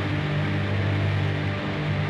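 Dark, droning horror-film soundtrack music: low sustained tones that swell and break off, over a steady hiss.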